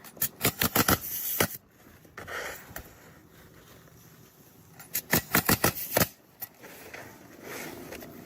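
Pneumatic roofing nail gun firing into asphalt shingles: two quick runs of about half a dozen sharp shots each, some four seconds apart, with shingles rustling and scraping in between.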